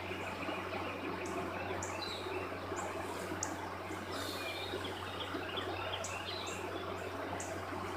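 Outdoor ambience: small birds chirping on and off over a steady low hum, with short high ticks every second or so.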